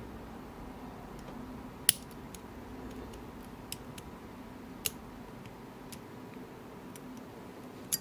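Scattered small metallic clicks of a hook pick working the pins inside an Illinois Duo padlock against a tension wrench: about six clicks, irregularly spaced, the sharpest about two seconds in and another at the end.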